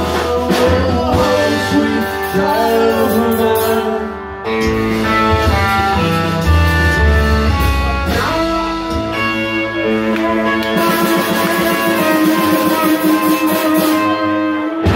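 Live band music: a singer over upright double bass, drum kit and guitar.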